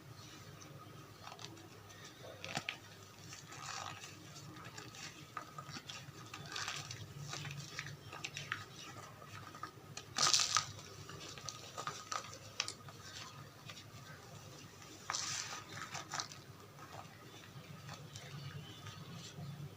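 Dyed gym chalk mixed with cornstarch being crushed, giving soft squeaks and crunches in irregular bursts, loudest about ten seconds in and again about fifteen seconds in.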